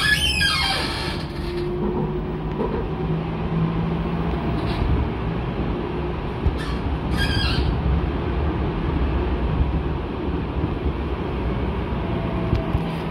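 Light-rail tram running along its track, heard from on board: a steady low rumble of wheels and drive, with a falling whine in the first second and two brief high squeals from the wheels around the middle.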